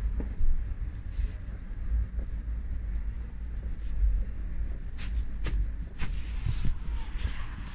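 Low, steady rumble inside a car, with a few short, sharp clicks about five seconds in.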